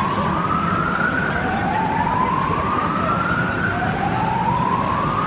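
Mall building alarm sounding a slow, repeating whoop: a rising tone that sweeps up and restarts about every two and a half seconds. A bystander identified it as an earthquake alarm.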